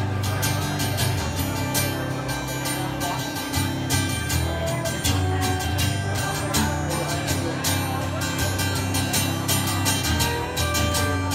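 Instrumental break of a live country song: acoustic guitar strummed in a steady rhythm, with a pedal steel guitar holding long, gliding notes over it.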